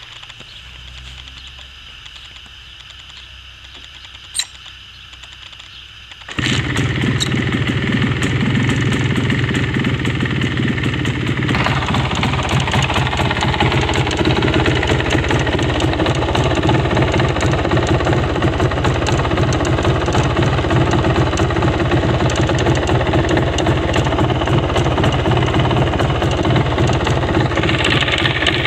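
MZ ETZ 250's single-cylinder two-stroke engine starting up about six seconds in, after a few quiet seconds with one click, then running steadily with a fast, even beat.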